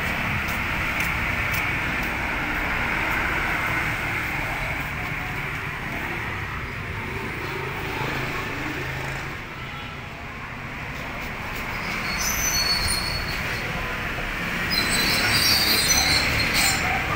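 Steady street traffic noise, a continuous rumble and hiss, with a few brief high-pitched sounds near the end.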